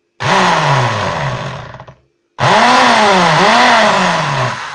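Handheld electric drill boring a hole through thin aluminium sheet, run in two bursts with a short stop between, the motor's pitch falling and rising as its speed changes under the trigger and the load.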